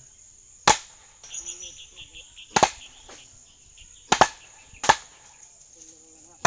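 A heavy wooden mallet pounds bamboo posts into the earth: about five sharp, hard blows a second or two apart, two of them doubled.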